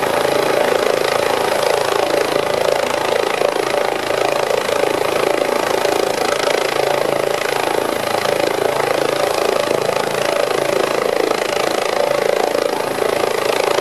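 Air-ambulance helicopter running steadily on the ground just after landing, its turbine whine and rotor noise holding even.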